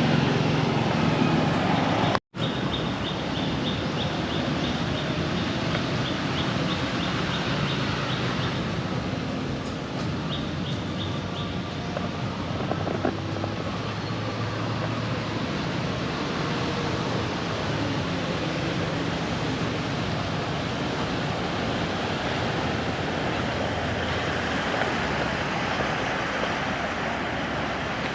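Steady outdoor background noise, a dense even hiss and rumble, with a rapid high chirping trill from about two to eight seconds in and again briefly around ten seconds. The sound cuts out abruptly for a split second about two seconds in.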